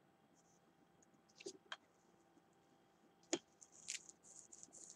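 Near silence broken by a few faint clicks and taps, with one sharper click about three seconds in and a brief soft hiss just after.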